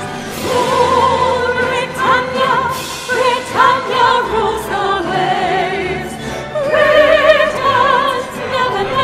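Three sopranos singing together in classical, operatic style, their voices held with a wide vibrato.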